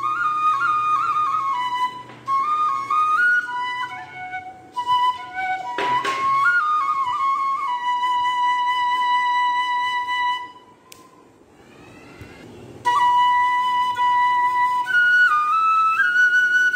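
Background music: a single melodic line stepping from note to note, which drops away for about two seconds near the middle.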